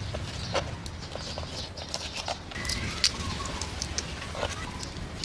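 Knife cutting through raw shrimp heads and shells on a cutting board, then fingers snapping and peeling the shells: scattered sharp clicks and crackles over a low steady hum. A few short chirps sound in the background.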